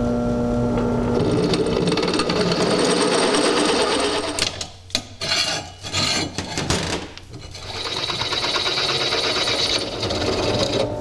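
Benchtop drill press running, a 9/16 drill bit boring out the holes in a metal golf-cart lower shock mount and spring bracket. The steady motor hum gives way to rough cutting noise that breaks off and starts again through the middle. A high steady squeal of the bit comes in near the end.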